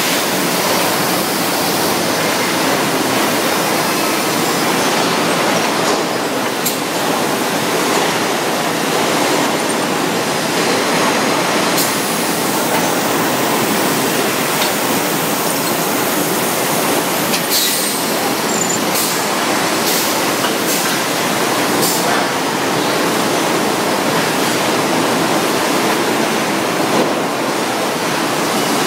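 Loud, steady roar of foundry machinery, with a few sharp metallic clanks scattered through it.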